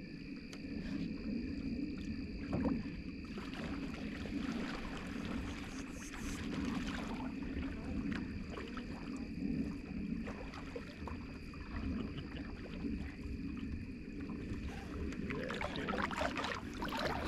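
Swift Keewaydin canoe being paddled on calm water: paddle strokes, drips and water moving along the hull, with scattered small clicks over a low steady rumble.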